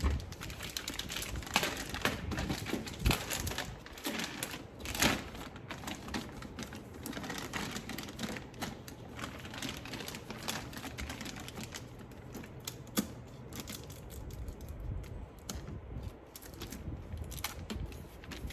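Irregular light clicks and taps of hands working on a rackmount NAS's metal chassis and parts, with a few sharper knocks about 1.5, 3, 5 and 13 seconds in.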